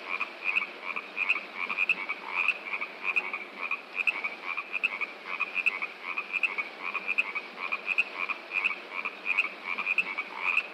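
A chorus of frogs calling in short repeated pulses, about three a second, over a steady hiss of rushing water.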